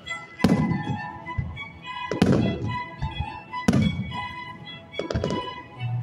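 Aerial firework shells bursting, four deep booms about a second and a half apart, with music playing under them.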